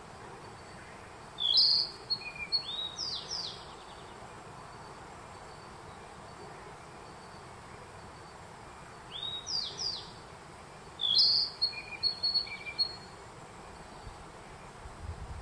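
Narcissus flycatcher singing: two short phrases of quick, varied whistles and trills, about eight seconds apart, over a steady background hiss.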